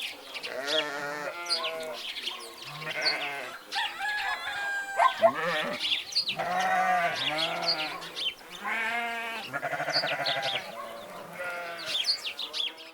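A flock of goats or sheep bleating over one another in long, quavering calls.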